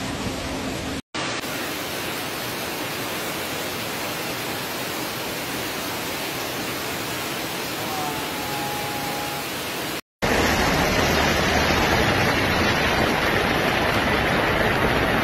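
Heavy rain and rushing floodwater: a steady, dense wash of noise. It cuts out briefly twice and is louder after the second cut.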